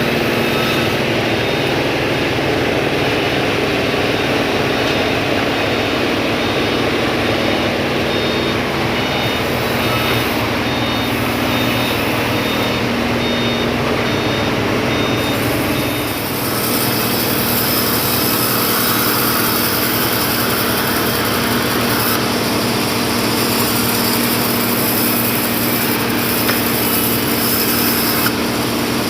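Forklift engine running steadily, with its reversing alarm beeping at a regular pace for about the first half. About halfway through the beeping stops and the machine noise shifts, with more high hiss and whine.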